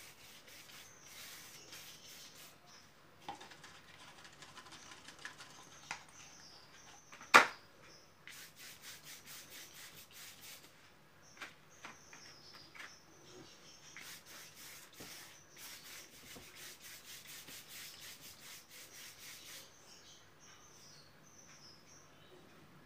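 A pastel stick rubbed back and forth on paper in bursts of quick scratchy strokes. One sharp knock about seven seconds in is the loudest sound, and faint high chirps come and go.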